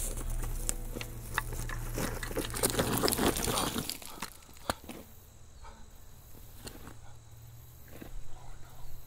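Background music for the first few seconds, joined between about two and four seconds in by a body falling and scuffling on a gravelly dirt trail. The music then drops away, leaving a sharp click and a few faint scrapes.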